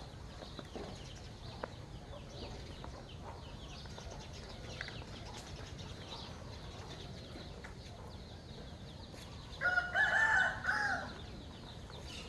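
A rooster crows once, about ten seconds in: one loud call, held and then falling away at the end. Faint chirping of small birds runs underneath.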